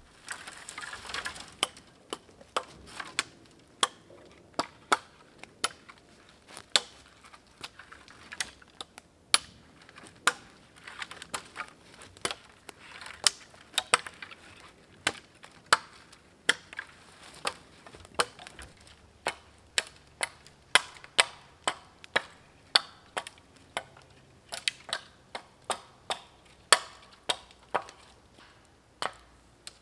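Hatchet chopping along a thin sapling pole, knocking off its branches: a long run of sharp, irregular chops, about one or two a second.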